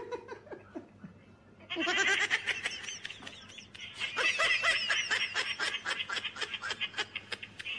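Loud laughter in quick, rapid bursts, starting about two seconds in and running on.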